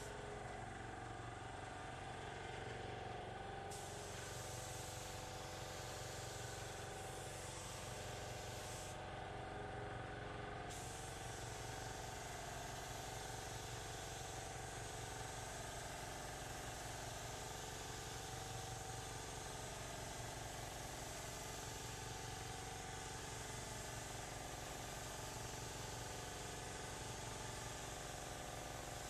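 Paint spray gun hissing as it lays down clear coat in passes. The hiss starts a few seconds in, breaks off for about a second and a half about a third of the way through, then runs on, over a steady machine hum with several held tones.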